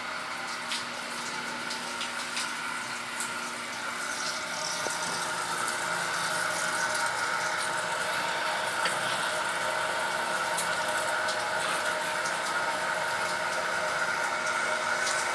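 Water running steadily from a handheld shower sprayer into a sink, a constant hiss with a faint whine, getting a little louder about five seconds in; it is rinsing the lather off a dog being bathed.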